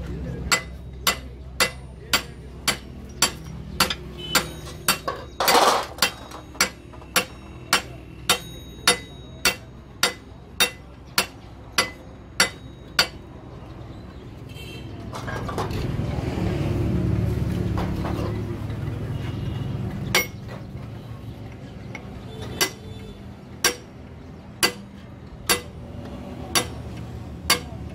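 Hammer blows ringing on steel parts of a Hino truck manual gearbox, about two strikes a second, as a part is driven onto the shaft during assembly. Midway the blows stop for several seconds while a louder rumbling noise swells, then more spaced-out blows follow.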